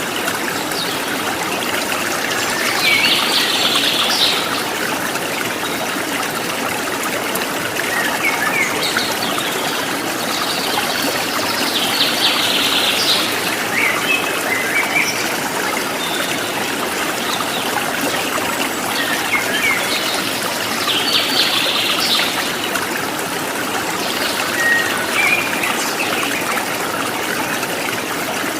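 Running water trickling steadily, with a songbird repeating the same short phrase three times, several seconds apart, and softer chirps in between.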